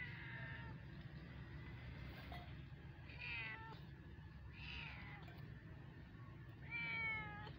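Newborn kittens mewing: four short, high-pitched mews, each falling in pitch, the loudest near the end.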